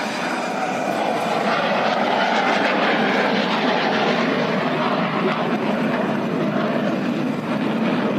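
Fighter jet's engines flying past overhead: a steady rushing jet noise with no clear rise or fall.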